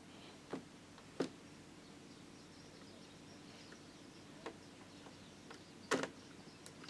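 A few sharp little clicks and taps of a small Phillips screwdriver and fingers working at the screws of a laptop's screen frame, four in all, the loudest about six seconds in, over a faint steady room hum.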